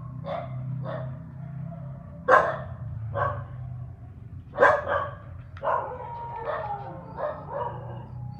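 A dog barking and yipping in a string of short calls, two of them louder, about two and a half seconds in and again near the five-second mark, over a steady low hum.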